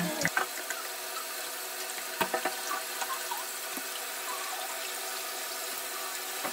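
Water running steadily, a tap or shower, with a few small clicks from toiletry bottles being handled.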